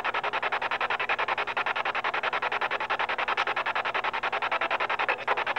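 Ghost-hunting spirit box (a 'portal' device) sweeping through radio channels: a fast, even rasping chop of static, roughly a dozen pulses a second, with no voices coming through.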